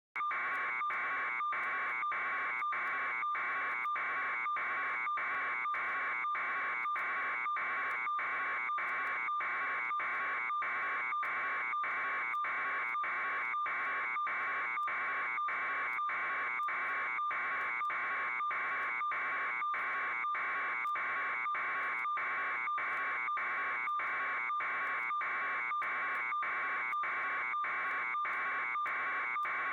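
A steady, unchanging electronic buzzing tone, pulsing evenly a little over twice a second.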